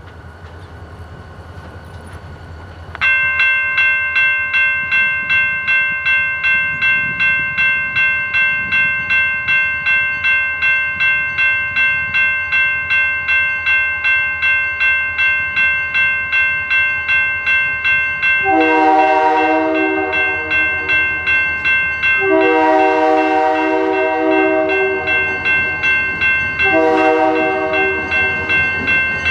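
Grade-crossing warning bell starts about three seconds in and rings steadily, about two strikes a second. About two-thirds of the way through, an approaching diesel locomotive's multi-chime air horn sounds the crossing signal over it: two long blasts and a short one.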